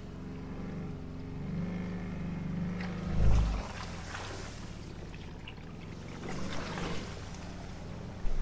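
Can-Am Defender HD10 UTV's V-twin engine running steadily as it drives along a wet, grassy trail, with a heavy low thump about three seconds in. Wet grass and mud swish under the tyres a few times.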